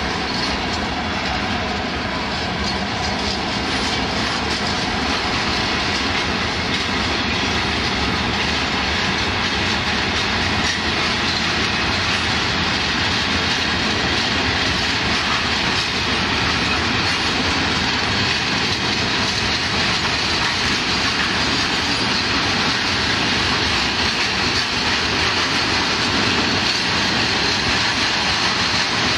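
Long freight train of wagons carrying lorry trailers, containers and tank containers rolling past close by: a steady, loud rumble and clatter of steel wheels on the rails.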